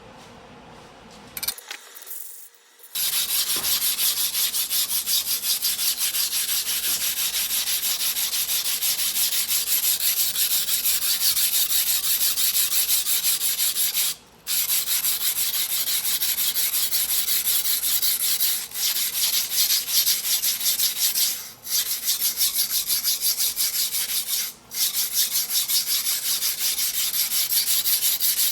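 A 270 mm single-bevel sujihiki's steel blade being hand-sharpened on a wet whetstone: quick, even back-and-forth scraping strokes, broken by a few short pauses.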